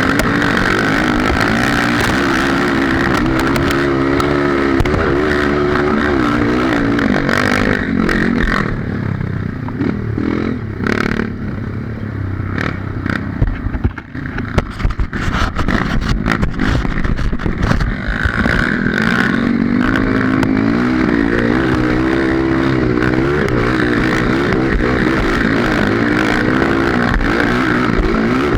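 Honda CRF230 single-cylinder four-stroke trail bike engine running under load, its pitch rising and falling with the throttle. For several seconds in the middle it eases off while sharp knocks and clatter come through. It then pulls strongly again.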